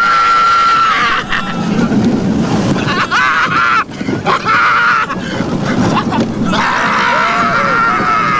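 Rollercoaster riders screaming in long held yells, several times with short breaks, over a steady rush of wind on the microphone and the rumble of the coaster train on the track.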